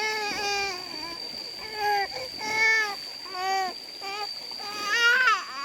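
A young child crying in a string of short, high-pitched wails, each rising and falling, with a steady thin high-pitched tone underneath.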